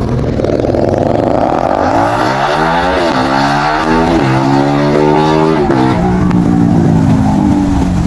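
Suzuki Raider 150 motorcycle engine accelerating. Its pitch climbs and drops back several times as it shifts up through the gears, and each climb lasts longer than the one before.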